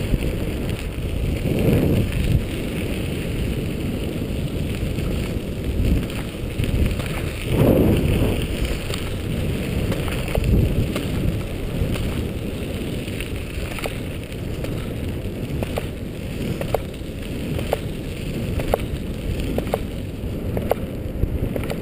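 Wind rushing over the microphone and tyres rumbling on a rough road surface as a dog scooter is pulled along at speed by a team of dogs. There are a few stronger gusts and scattered small ticks.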